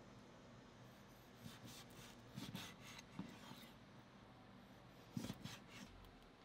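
Kitchen knife slicing raw salmon fillets on a plastic cutting board: faint scraping cuts and a few soft knocks of the blade and fish pieces on the board, the loudest toward the end.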